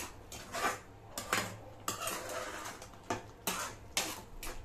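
A steel spoon scraping and clattering against a stainless-steel pan while stirring thick carrot halwa, in short irregular strokes about every half second.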